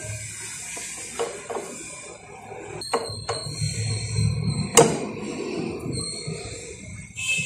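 A silicone spatula scraping and stirring through crumbly flour dough in a glass bowl, with a few sharp clinks against the glass, the loudest just before five seconds in. The flour is being worked into a wet mix of ghee, water and yogurt.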